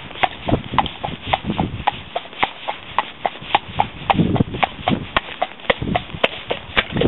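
A horse's hooves walking at a steady pace, with an even clip-clop of about three to four hoof-falls a second, as it wades through shallow water covering a hard lane.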